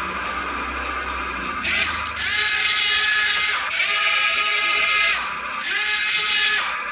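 RC excavator's electric motors whining in repeated spells of one to one and a half seconds, each winding up in pitch and winding down again as the controls are worked.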